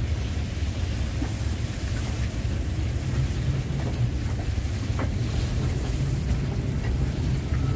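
Gusty wind blowing on the microphone: a steady low rumble with an even hiss above it, and a few faint ticks.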